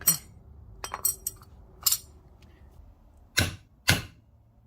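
Small metal knife parts and tools clinking and tapping as they are handled: a cluster of sharp clinks in the first two seconds, then two fuller knocks past the middle.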